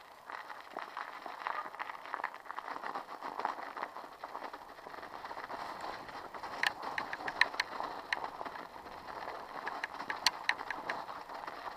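Mountain bike riding over rutted, packed snow: the tyres crunch and the bike rattles over the rough track, with sharp, irregular clicks and knocks from about six seconds in.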